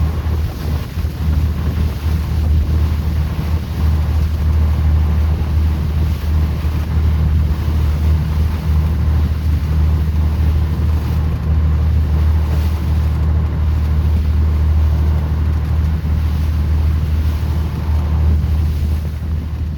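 Fishing boat's engine running steadily with a deep, even hum, with wind buffeting the microphone.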